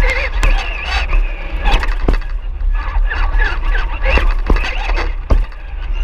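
Busy crowd noise with squeaky, wavering pitched sounds and a few sharp knocks over a constant low rumble.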